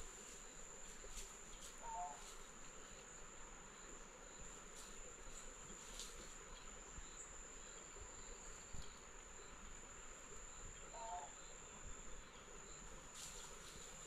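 Faint, steady high-pitched insect trill in the woods, unbroken throughout. A short two-note call sounds twice, about two seconds in and again near eleven seconds.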